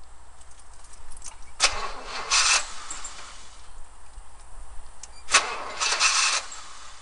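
1976 Oldsmobile Cutlass engine, a hard starter, giving two short, loud bursts about four seconds apart over a low steady hum.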